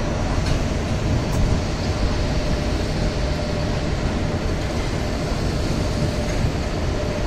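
CR200J train's green passenger coaches rolling slowly past: a steady rumble of wheels on rails, with a faint steady hum.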